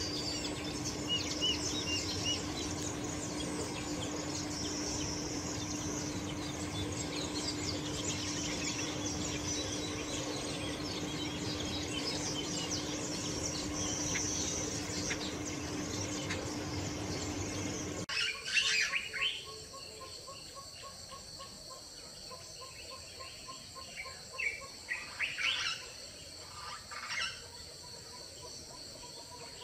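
Weaver birds chattering, many chirps overlapping over a low steady hum. About two-thirds of the way through it cuts to a steady high insect whine like crickets, with scattered bird chirps.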